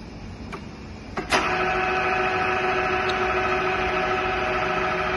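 GSP 60 radial drilling machine being switched into motion: a short clunk about a second in, then its electric drive and gearing run steadily with a whine of several pitches.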